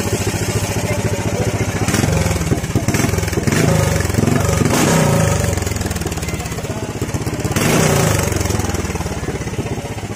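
Small petrol engine running, its revs rising and falling in bursts: about two to five seconds in and again near eight seconds.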